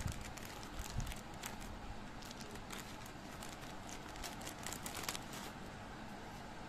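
Clear plastic bag crinkling and crackling softly as hands grip it and slide a stack of paper stationery out of it, the crackles thinning out near the end.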